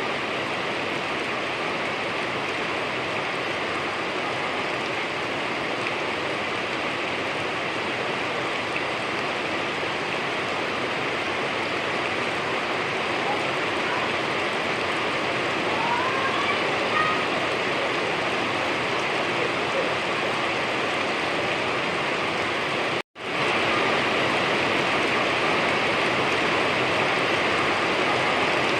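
Steady heavy rain, an even hiss with no letup, cutting out for an instant near the end.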